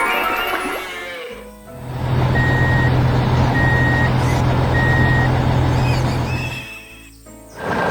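Heavy construction vehicle engine running steadily with a reversing alarm beeping three times, about a second apart. The sound fades out briefly before and after.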